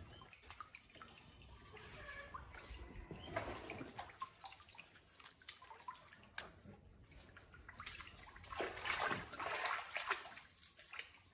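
Water splashing and sloshing in a small pool as a monkey plays at the edge, in irregular bouts with the louder splashes near the end.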